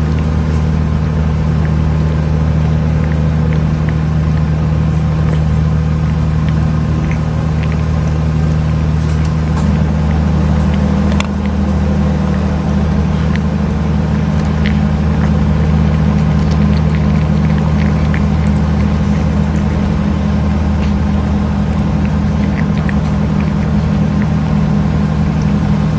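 A loud, steady low mechanical drone, with faint scattered clicks of a cat chewing food from a metal dish.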